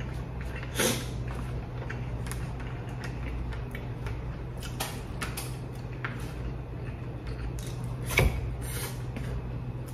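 Eating sounds: chopsticks clicking and tapping on a dish while picking up rice and fried chicken, with mouth and chewing noises, two short louder bursts about a second in and just after eight seconds, over a steady low hum.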